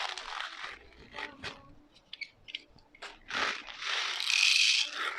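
Plastic handling noise from 0.25 g airsoft BBs and a BB loader being readied: several bursts of scraping and crunching, with scattered small clicks.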